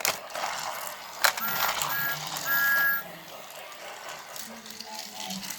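Talking toy train engine's small speaker playing a steam sound effect: a hissing rush with a two-note whistle tooting twice briefly and then once longer. The sound drops to a faint background about three seconds in.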